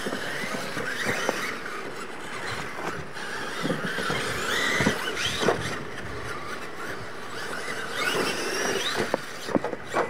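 Losi LMT radio-controlled monster trucks racing on dirt: their electric motors whine, rising and falling in pitch with the throttle, over the scrabble of tyres on loose dirt. Sharp knocks from jumps and landings come a few times, with a quick cluster near the end as a truck tumbles.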